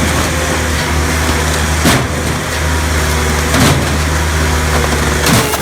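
Engine of a wood-processing machine running steadily, with three sharp knocks spread through the clip.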